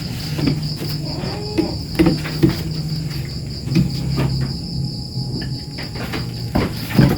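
Crickets chirring steadily in the background, with scattered short knocks and thuds over a low hum.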